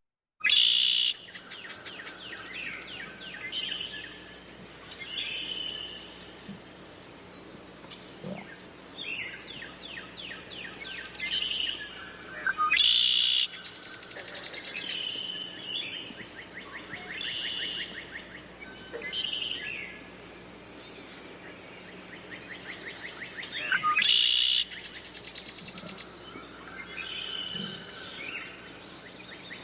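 Birds singing and calling, with rapid high trills and short chirps overlapping, and a louder phrase that comes back about every eleven seconds.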